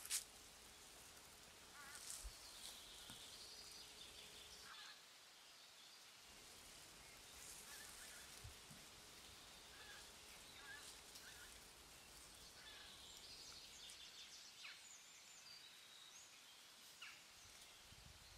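Quiet woodland ambience with faint, scattered bird calls, some honk-like, and a single sharp click at the very start.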